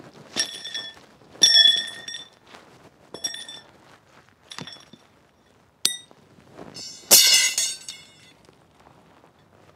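Metal rods clinking and clattering against each other and on the ground, about six strikes, each ringing briefly with a high metallic tone. The loudest come about one and a half seconds in and near the end.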